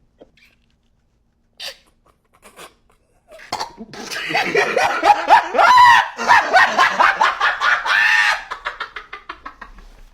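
A meme laughter sound effect: after a few faint short sounds, a long, loud laugh starts about a third of the way in and trails off near the end in rapid short pulses.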